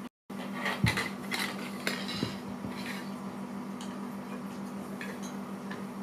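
Small hard pieces of a balancing game clicking and clinking as they are handled and stacked. A cluster of taps comes in the first two seconds, the loudest about a second in, with lighter clicks after it, over a steady low hum.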